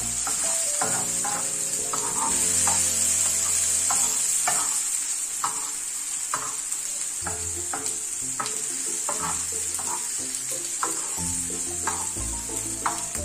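Chopped onions, tomatoes and green chillies sizzling in a black wok, stirred with a steel spoon that scrapes and taps against the pan every second or so.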